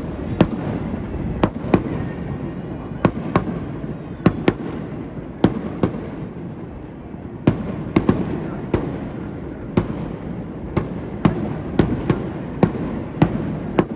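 Aerial fireworks shells bursting in rapid, irregular succession: about twenty sharp bangs, some in quick pairs, over a continuous rumble from the barrage.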